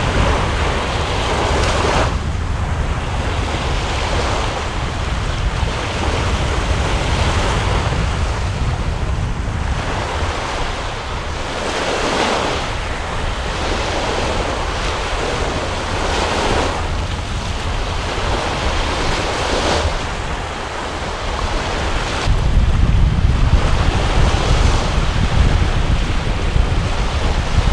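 Waves breaking and washing in every few seconds over a steady low rumble of wind buffeting the microphone. The wind rumble grows stronger near the end.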